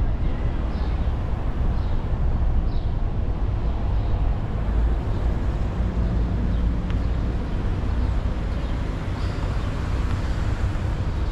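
Car driving along a street: a steady low rumble of engine and tyre noise. A few short high chirps sound in the first few seconds and again near the end.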